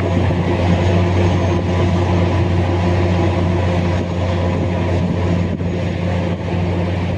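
Large diesel engine of heavy mining equipment running steadily under load, a deep even drone.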